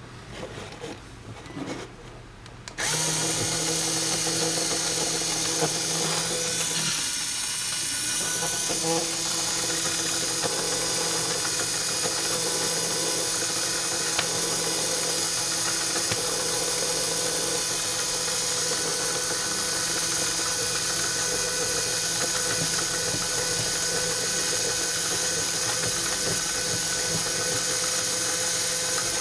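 A LEGO electric motor switches on about three seconds in and runs steadily, driving the plastic gear train of a LEGO Technic differential model with a continuous mechanical hum.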